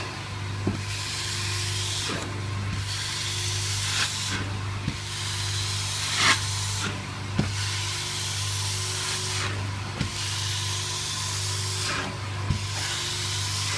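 Carpet-extraction cleaning machine running with a steady hum while its hand tool hisses, spraying and sucking water out of the stair carpet. The hiss breaks off briefly every two to three seconds between strokes, and a few sharp knocks sound as the tool meets the steps.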